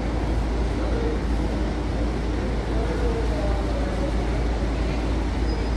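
Marcopolo G8 double-decker coach's diesel engine running as it pulls slowly across the yard. It is a steady, even low rumble with no sudden events.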